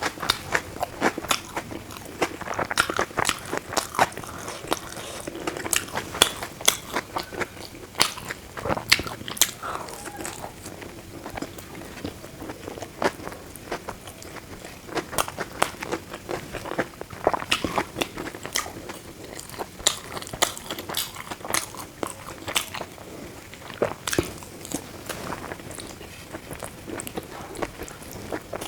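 Close-miked eating: a person chewing food, with frequent sharp crunches and clicks throughout.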